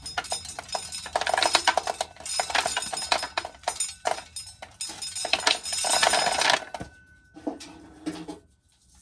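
Dried corn being shelled: hard kernels clattering and rattling into a container in several bursts of a second or so, stopping about two-thirds of the way through.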